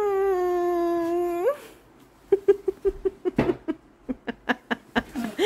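A woman's staged moaning: one long held moan that slides up in pitch as it ends, then after a short pause a quick run of short rhythmic 'ah' sounds, about five a second.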